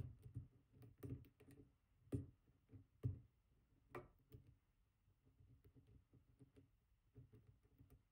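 Faint, irregular metallic clicks and scrapes of a hook pick probing the main-stack pins inside a Robur 2391 safe deposit box lock cylinder under tension. A few sharper clicks come about a second apart in the first half, then softer, quicker ticking.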